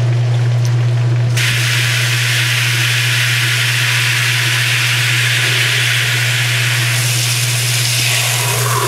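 1986 Kenmore 60 Series direct-drive washer running in spin, with a steady electric motor hum. About a second and a half in, a hose spray nozzle starts spraying water into the tub, a loud steady hiss over the hum.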